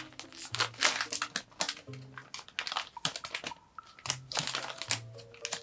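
Clear plastic packaging bag crinkling as it is handled and pulled open, in a run of quick, irregular crackles.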